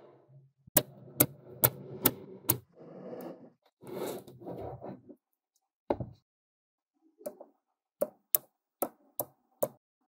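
Small magnetic balls clicking sharply as they snap together: a run of five clicks about two a second, a lone click, then six more irregular clicks, with softer scraping and rustling between them.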